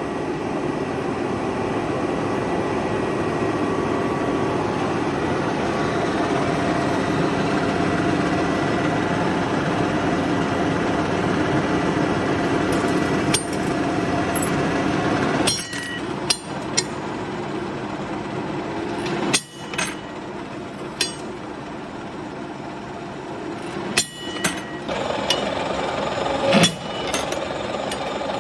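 Lathe running steadily while cutting 5 mm steel wire to length. From about halfway through come sharp metallic clicks and clanks at irregular intervals.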